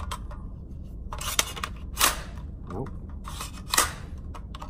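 Metallic clicks and clacks of a magazine being seated into an AR-15 pistol and its action being worked, with three louder sharp bangs among them. The magazine is failing to lock in: the gun's magazine catch will not hold it.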